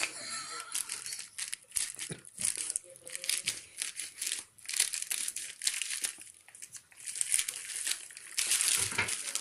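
Plastic packaging cover being cut and torn open, crinkling and rustling in irregular bursts.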